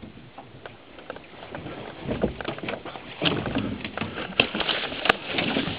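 Footsteps and brush rustling, with many small crackles of twigs and branches as people push through thick bush, louder from about two seconds in. Two sharp clicks near the end.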